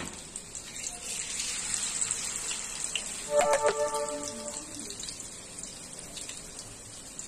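Hot oil sizzling steadily in a pan as battered onion and potato pakoras deep-fry. There is a sharp click at the very start and a brief pitched tone about three and a half seconds in.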